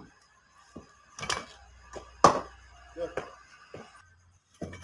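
A cricket bat striking a ball, one sharp crack about two seconds in, among other short knocks and brief calls from the players.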